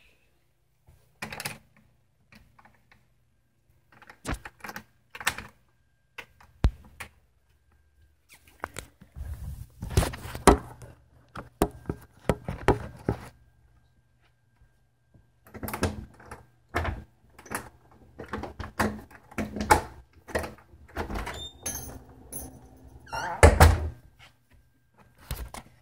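Scattered thumps and knocks against a door, from a cat jumping up and pawing at it to be let out. The loudest knock comes near the end.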